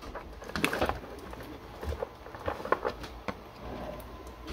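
Scattered small clicks and light taps of small parts and tools being handled on a desk, including metal screws being moved about.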